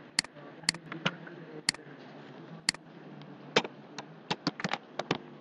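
Sharp clicks of a computer mouse and keyboard: a few single clicks spaced about half a second to a second apart, then a quick run of keystrokes near the end.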